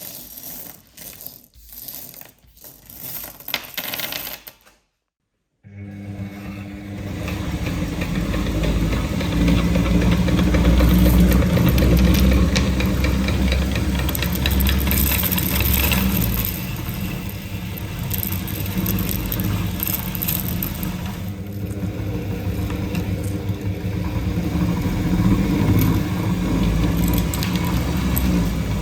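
Hard candies clattering and rattling in short bursts, then a brief silence. After that a meat grinder starts and runs steadily: its motor hums while the candies crunch and crackle in the mincer.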